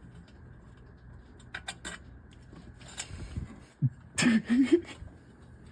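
A few light clicks and a short scratchy rasp of bolts and parts being handled, as a bolt is threaded into an intake manifold. A man's voice comes in near the end.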